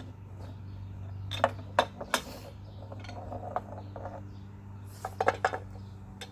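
Metal tools clinking and tapping as the bolts on a pool sand filter's top clamp are undone, a few sharp clicks about a second and a half in and a quick cluster near the end, over a steady low hum.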